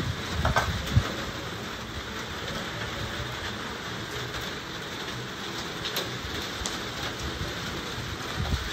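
Steady rain falling, with a few sharp crackles from the wood fire, the loudest about a second in.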